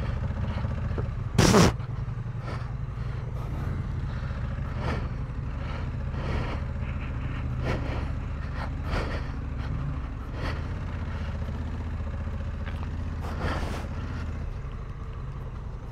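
Honda Africa Twin's parallel-twin engine running at low, steady revs on a muddy, rutted dirt track. There is one loud thump about a second and a half in, and lighter knocks about every second after it.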